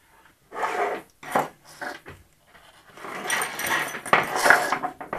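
Foam RC wing halves and tools being handled on a wooden workbench: a few short rustles, then a longer stretch of rubbing and scraping about three seconds in as a wing is slid into place.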